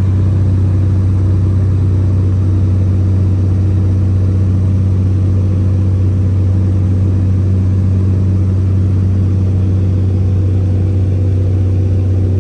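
Single-engine light aircraft's engine and propeller droning steadily in cruise, heard from inside the cabin: a strong low hum with a stack of steady tones above it.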